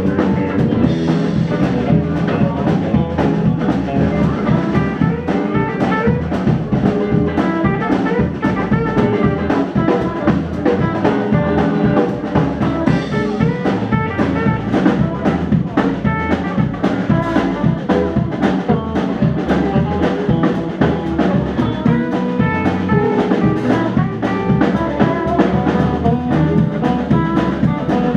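Live blues band playing an instrumental passage: electric guitars, electric bass and a drum kit keeping a steady beat, with a saxophone playing over them.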